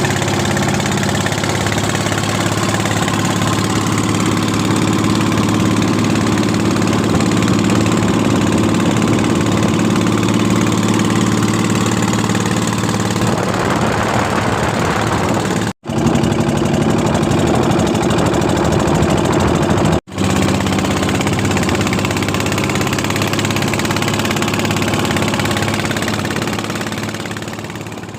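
Racing pompong boat engine running steadily at speed, with two brief dropouts about halfway through and fading away at the end.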